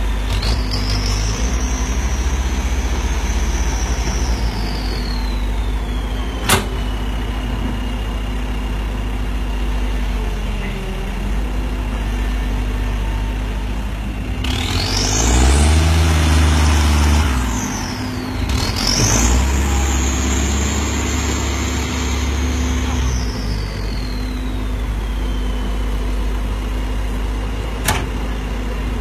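A tractor's turbocharged diesel engine running under load with a high turbo whistle. The whistle climbs and then sinks slowly over several seconds. About halfway through, the engine revs up twice, and each time the whistle shoots higher before winding down again, with two sharp clicks along the way.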